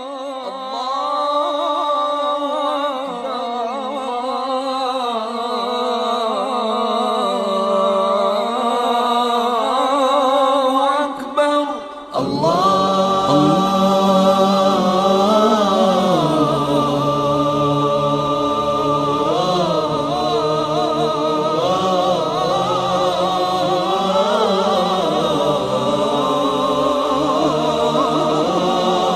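Arabic nasheed sung a cappella by several layered voices, with melodies that slide and waver. After a brief break about 12 seconds in, a fuller section starts with deeper voices added.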